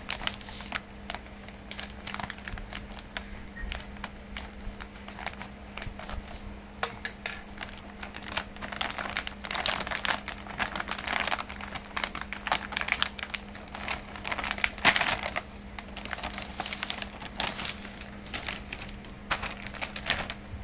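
Plastic packet of frozen momos crinkling as it is handled and cut open with scissors: irregular rustles and sharp snips, with a faint steady hum underneath.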